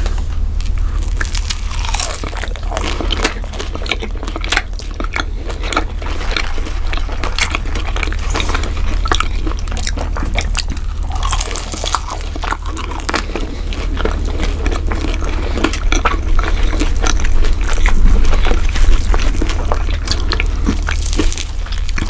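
Lovebirds eating: a long, irregular run of small crunching clicks as their beaks bite and crunch food.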